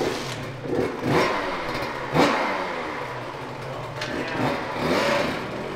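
Small 65cc two-stroke youth dirt bike engine being revved as it pulls away, its pitch rising sharply and dropping back several times.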